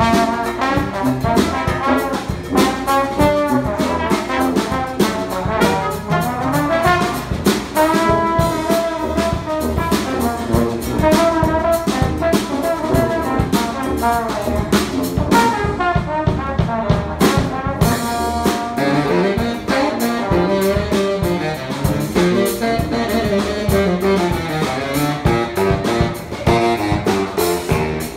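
Live brass band playing a lively tune: trombone, sousaphone and baritone saxophone among the horns, over a drum kit keeping a steady beat.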